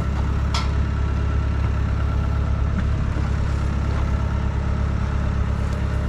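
Wood-Mizer portable sawmill engine running steadily at idle, with a single sharp tick about half a second in.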